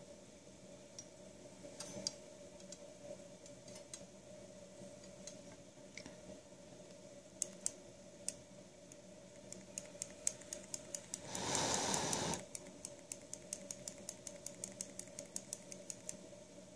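Small metallic clicks and ticks of fingers handling a stainless-steel rebuildable vape atomizer, coming quicker in the second half. A brief hiss about eleven seconds in. A faint steady hum underneath.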